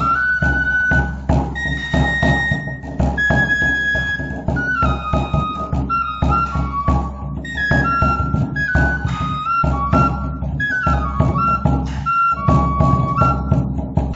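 Instrumental music with a high melody of short stepping notes over a steady, busy low beat, stopping near the end.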